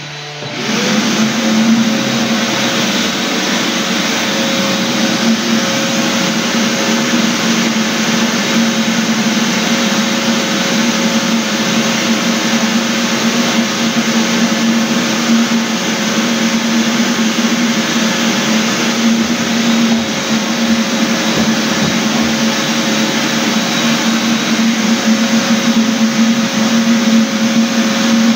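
Electric floor sanding machine starting up, its motor whining up to speed within the first second, then running steadily with a low hum, a higher whine and a rushing noise.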